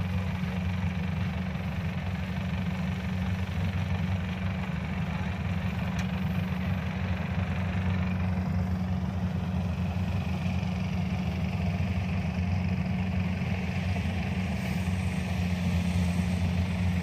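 A farm machine's engine running steadily, a low even drone that holds at one speed throughout.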